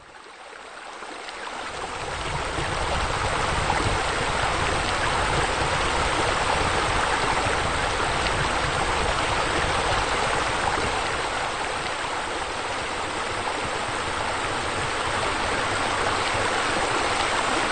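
Flowing, splashing water: a steady rush that fades in over the first two to three seconds and then holds even.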